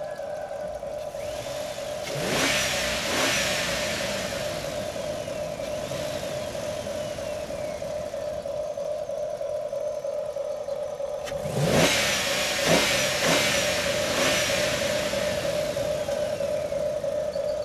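A steady motor whine throughout, with two louder bursts of vehicle noise, about two seconds in and about twelve seconds in, each falling in pitch as it fades.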